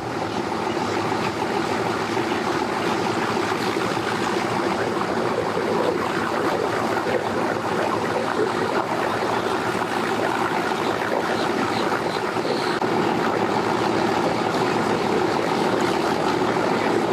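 Boat outboard motors running steadily at low speed, several at once, over a steady wash of noise.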